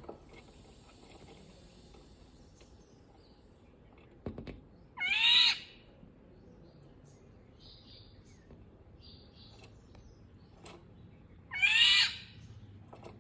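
Indian golden oriole giving two loud calls about six seconds apart, each a little over half a second long. Faint chirps come between the calls, and a soft knock comes just before the first.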